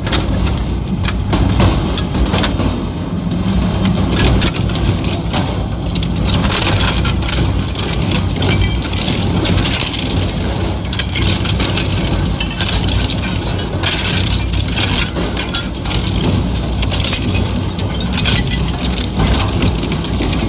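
Heavy crushing machine at work: a steady low engine drone under continuous cracking, snapping and clattering as material is broken up.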